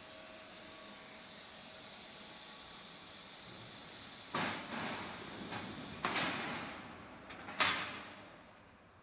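Steady high hiss of air at a CNC plasma cutting table, fading away near the end. Three short scraping bursts come in the second half, the last the loudest.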